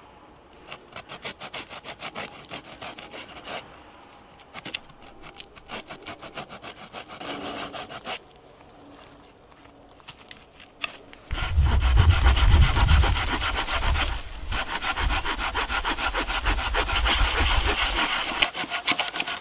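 Folding hand saw cutting wood in quick back-and-forth strokes, about four a second. About eleven seconds in the sawing turns much louder and heavier, the saw working through a thick pole.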